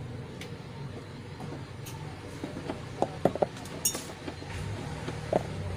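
A few light clicks and clinks of small hard parts being handled, clustered about three seconds in, over a steady low hum.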